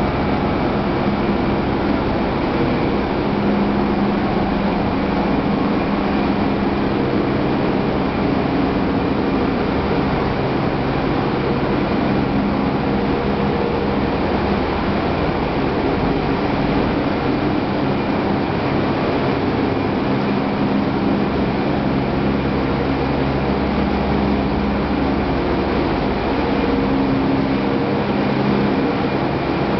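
Corn wet-milling processing machinery running: a loud, steady mechanical din with several constant low hums and no change in pitch or level.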